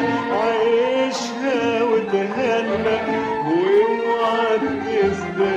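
An Arabic song: a voice singing long melodic lines that bend in pitch, over instrumental backing.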